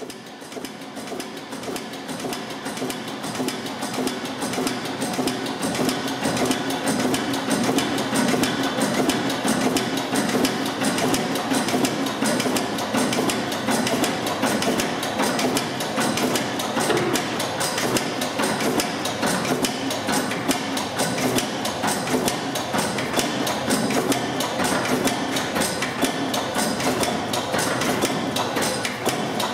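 Old flywheel stationary engine running with a rapid, even knocking clatter. It gets louder over the first few seconds, then runs steadily.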